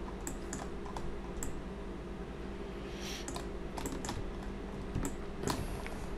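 Computer keyboard keystrokes, scattered and irregular single clicks, over a steady low hum.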